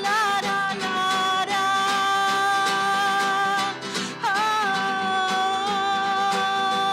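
A song with acoustic guitar: long held melody notes slide in and waver briefly at the start and again about four seconds in, over plucked guitar.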